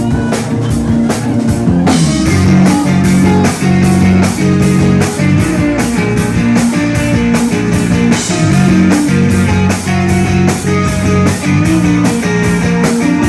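Rock band playing live with no singing: electric guitars and bass over a drum kit keeping a steady beat.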